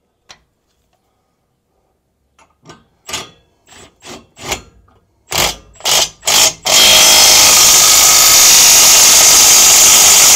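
Impact wrench running a gooseneck hitch bolt down: several short trigger pulls, then a few seconds of continuous hammering as the bolt is run in.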